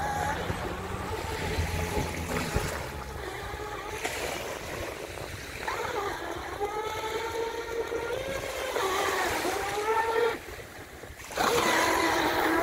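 Electric motor of a 3D-printed RC catamaran speedboat running on a 6S LiPo pack, a whine that rises and falls in pitch with the throttle as the boat planes and turns on the sea. About ten seconds in the motor cuts back briefly, then comes in louder as the boat passes close, over wind and lapping waves.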